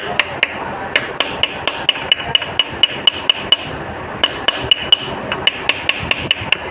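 Hammer lightly and quickly tapping a punch against the metal of a Honda CG 125 engine, each tap with a short metallic ring, about four to five taps a second with a brief pause partway. This is light punching (staking) around the cam-gear bush seat, so that the bush sits tight and the loose-bush play behind the cam gear noise is cured.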